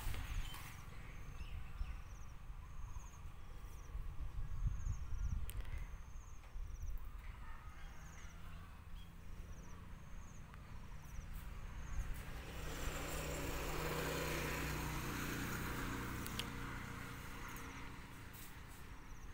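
Rural outdoor ambience: a high insect chirp repeats about once a second for the first several seconds, then a vehicle passes, its noise swelling from about twelve seconds in and fading away near the end.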